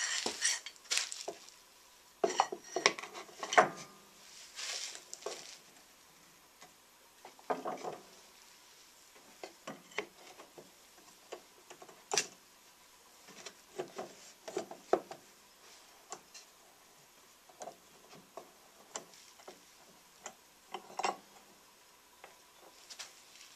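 Scattered clicks, knocks and clatter of clamps being handled and fitted around a freshly glued wooden box, busiest in the first few seconds, with a few single sharp clicks later.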